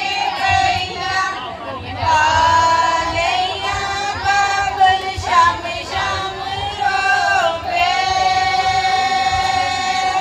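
Women singing a Punjabi folk song, a lead voice through a microphone with others singing along, in long held notes.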